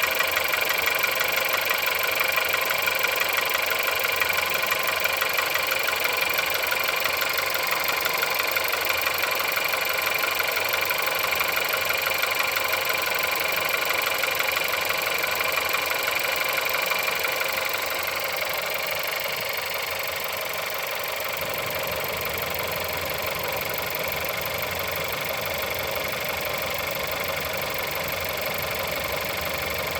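Car engine with 176,000 on the clock, idling after a cold start with a fast, even knocking from inside the engine. About two-thirds of the way through, the sound gets a little quieter.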